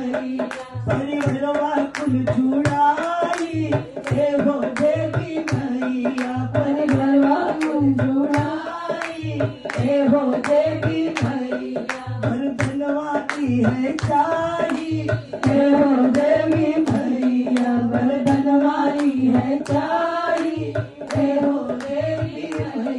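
Group of women singing a Bhojpuri devotional bhajan to the Mother Goddess, with steady hand-clapping several times a second and a dholak drum thumping on the beat.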